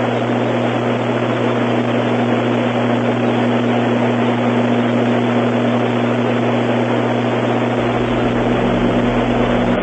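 Steady, even rushing noise, like a hiss of static, over a low droning hum; it cuts in sharply and cuts off abruptly near the end.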